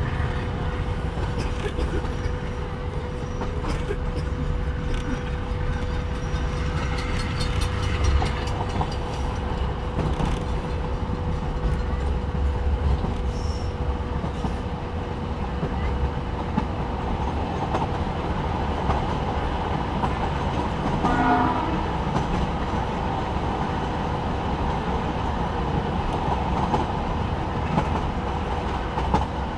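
Passenger train running through town, heard from inside a carriage: steady low rumble of wheels on rails with a constant hum. About two-thirds of the way through, the locomotive's horn sounds briefly.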